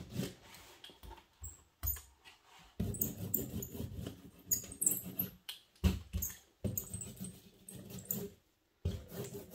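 A rubber brayer rubbed back and forth over wet acrylic paint on heavy watercolor paper, smearing it: rubbing and squeaking in short, irregular strokes, with a few sharp knocks.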